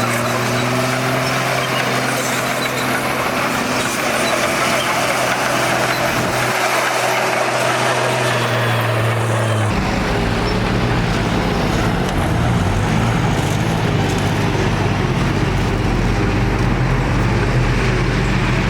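Heavy diesel engines of road-construction machinery, dump trucks and a bulldozer, running steadily. About halfway through, the sound switches abruptly to a deeper engine note.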